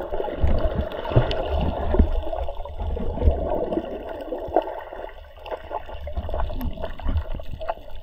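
Water moving around an underwater camera: a low rumble with uneven thumps, gurgles and scattered small clicks and pops.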